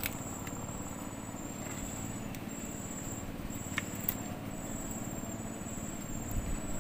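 A steady low rumble under insects chirping in short, repeated high trills, with two light clicks about four seconds in as a fishing rod is lifted.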